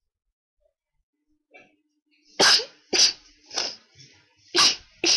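A fit of sneezes in quick succession: after a short quiet and a small intake of breath, about four sharp sneezes come in the second half, well under a second apart.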